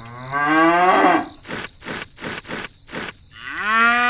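A cow mooing: one rising moo, then a run of about five sharp knocks, then a second, long, steady moo near the end.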